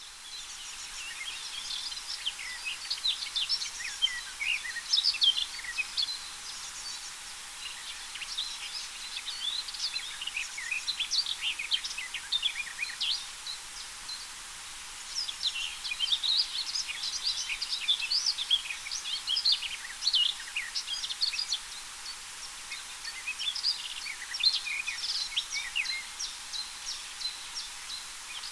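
Garden warbler singing: long runs of fast, rich warbling, with short pauses about halfway through and again later.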